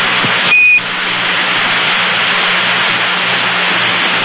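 Open air-to-ground radio channel hissing with static and a faint low hum, after a single short high beep about half a second in.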